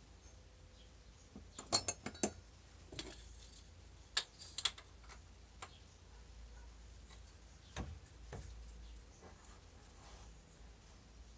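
Scattered light metallic clinks and taps from parts on the carriage of a stopped lathe being handled: a quick cluster of clinks about two seconds in, a few more around four seconds and a single knock near eight seconds.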